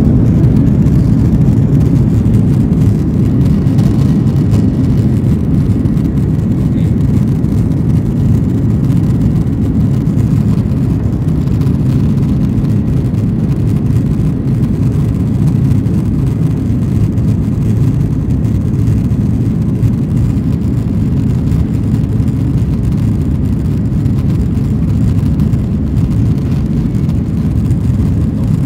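Steady low rumble of an airplane during landing, with no change in pitch.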